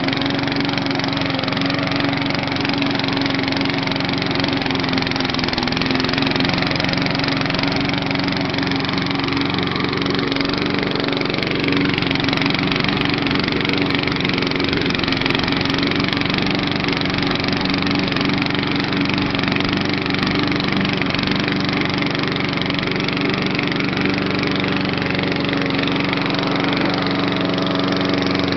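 Propane-fuelled Briggs & Stratton lawnmower engine running steadily, converted to run on LP gas through its original carburetor. Its note shifts near the end.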